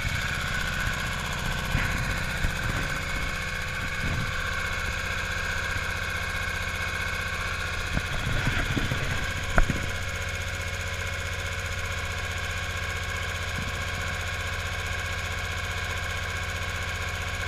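Single-cylinder Murphy 8 hp diesel driving a Superior generator, running steadily at its governed 1800 RPM with an even, rapid beat. A few knocks are heard in the first half, the loudest a sharp click near the middle.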